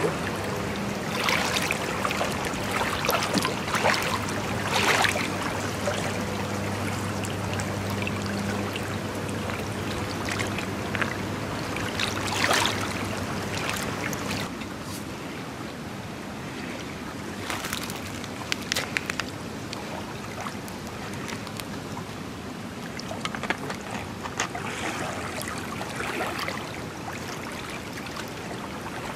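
Small waves lapping and splashing against a pebbly shore, with a low steady hum through the first half.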